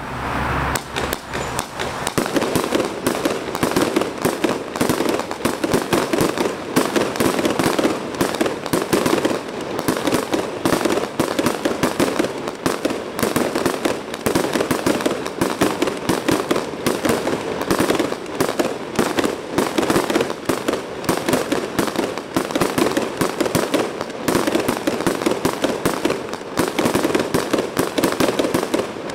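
DF1001CO 'Colorful Thunder Tail' consumer firework firing shot after shot, a dense, continuous rattle of small bangs and crackles that starts about a second in and does not let up.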